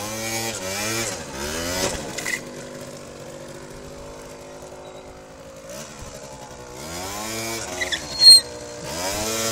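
MBK Booster (Yamaha BW's) scooter's two-stroke engine revving up and down while ridden, its pitch rising and falling several times with a steadier stretch in the middle. A short sharp noise, the loudest moment, stands out near the end.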